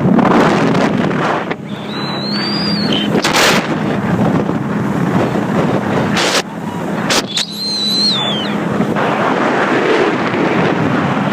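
Speedboat under way with heavy wind buffeting on the microphone over a steady engine hum. There are a few sharp knocks, and two brief high whistling tones about two and seven seconds in.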